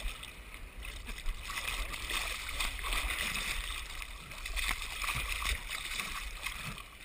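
Seawater sloshing and splashing around a GoPro camera at the surface, small waves lapping over its housing with a low rumble underneath.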